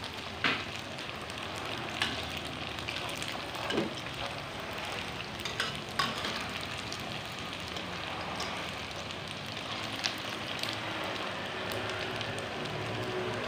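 Pempek pieces deep-frying in hot oil in a steel wok: a steady sizzle, with a few sharp clicks of metal tongs and a spatula against the pan as the pieces are turned.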